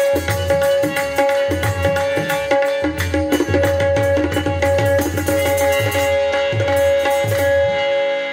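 Punjabi folk music without singing: hand drums play a fast, steady rhythm over a held melodic note. Near the end the drumming stops and the held note rings on alone.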